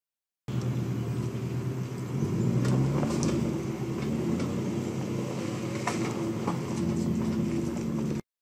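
The 2022 Land Rover Defender V8's 5.0-litre supercharged V8 running at low revs as the SUV crawls over a rocky track, with a few sharp clicks and crunches of stones under the tyres. The sound cuts in suddenly just after the start and cuts off near the end.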